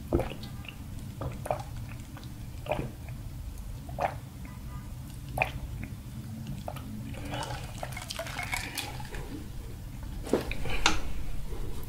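Drinks being sipped through straws from plastic cups, close-miked: short slurps and swallows every second or so, thickening into a denser run of slurping with the loudest burst near the end.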